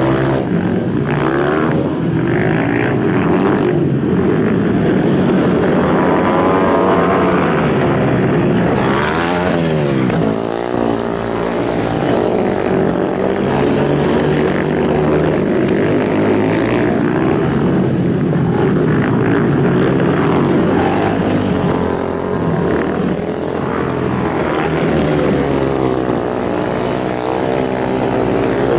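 Racing superbike engines running at high revs, several machines sounding together, with one swelling and shifting in pitch as it passes close about nine seconds in.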